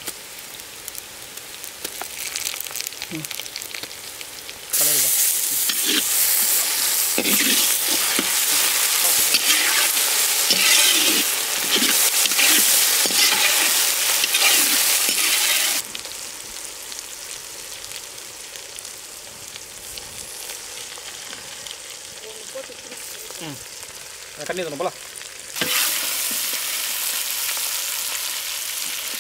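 Onions, curry leaves, dried red chillies and ginger-garlic paste sizzling in hot oil in a kadai, stirred and scraped with a spatula. The sizzle jumps louder about five seconds in, drops back about sixteen seconds in, and rises again near the end.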